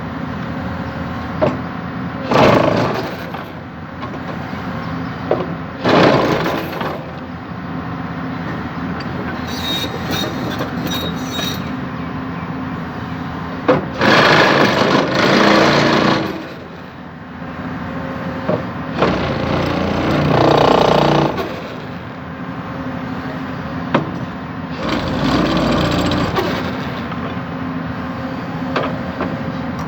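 Excavator engine running steadily while it compacts a culvert's sub-base, with several louder surges of one to two seconds as the machine works.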